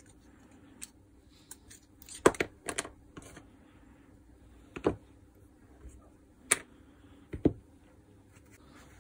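Scattered sharp clicks and knocks of small parts being handled: a hook pick prying a black plastic ring out of an angle grinder's aluminium gear housing, then the housing and tools being set down on a hard table. About five separate clicks, the loudest a little over two seconds in.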